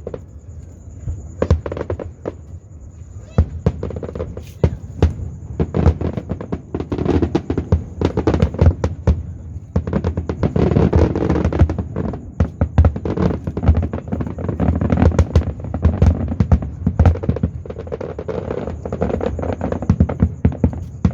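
Fireworks going off in rapid, irregular succession: a continuous run of sharp bangs and crackles that grows denser into a heavy barrage through the middle and stays busy to the end.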